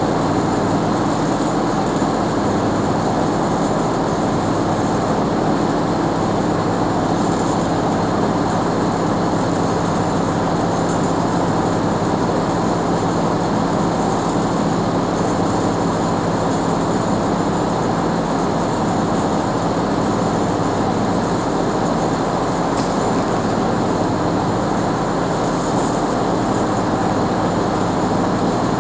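Heavy diesel logging-truck engine running at a steady speed, a constant low hum that neither rises nor falls.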